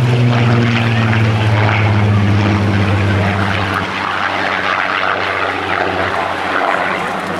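A Supermarine Spitfire's Rolls-Royce V12 engine and propeller running at power on a low pass, then pulling up into a climb. The low drone drops slightly in pitch early on and fades about four seconds in as the fighter climbs away.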